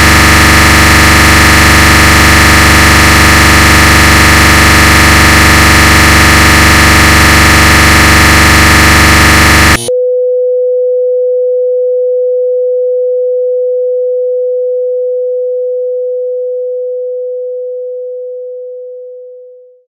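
Very loud, harsh electronic buzzing made of many steady tones at once, which cuts off abruptly about halfway through; a single steady pure tone follows and slowly fades away to nothing.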